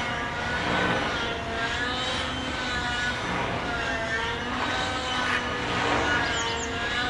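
Synergy N9 radio-controlled helicopter with an O.S. .91 two-stroke nitro engine, the engine and rotors running hard as it flips over and over while pirouetting. Its whine swings up and down in pitch about once a second, repeatedly.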